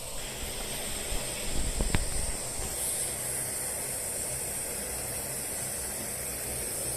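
Optimus gas camping stove burning with a steady hiss under a 1.1-litre camping kettle that is just coming to the boil. The high hiss grows a little brighter about three seconds in, with one brief knock about two seconds in.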